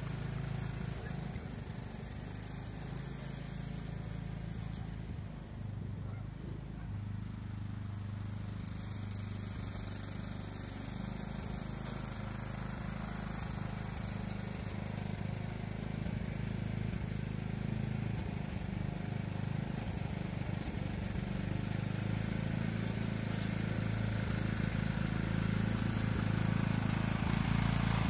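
Lawn tractor engine running steadily, growing louder over the last several seconds.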